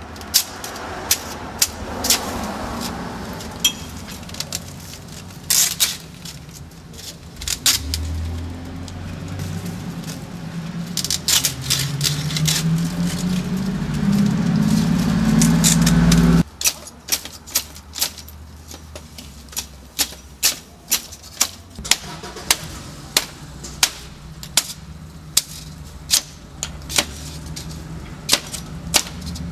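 Glass panes being smashed out of an old wooden window frame: many sharp cracks and knocks, with glass clattering. In the middle a low engine-like rumble builds and then cuts off suddenly. After that the strikes come about once a second.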